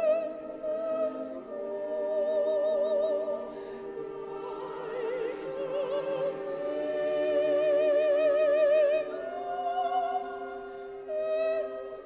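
Operatic soprano singing long held notes with a wide vibrato over a full orchestra, the voice swelling to its loudest about eight to nine seconds in.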